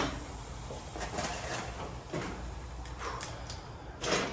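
Faint scattered clinks and scrapes of steel garage door hinges and hardware being handled, with a louder knock near the end.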